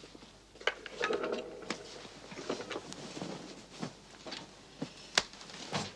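A series of light clicks and knocks, such as crockery and cutlery being handled on a meal tray, with a sharper knock about five seconds in.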